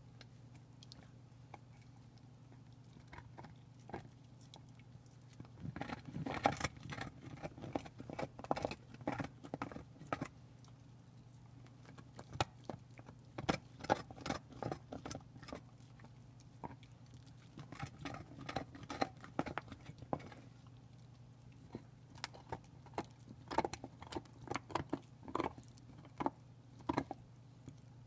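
Pit bull gnawing a large beef bone: teeth clicking, cracking and scraping on the bone in bursts of several seconds, with short pauses between.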